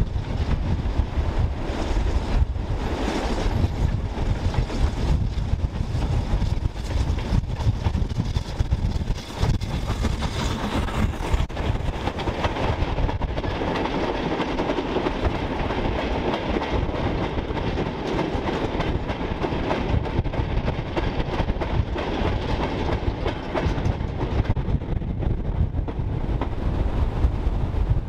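A steam-hauled goods train passing close by: the locomotive going past, then a long rake of four-wheeled open mineral wagons rumbling and clattering over the rails.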